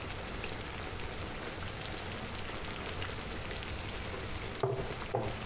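Sour cream sauce simmering in a frying pan over pike pieces, a steady soft crackling and bubbling. The fish has stewed ten minutes on medium heat and the hob has only just been switched off.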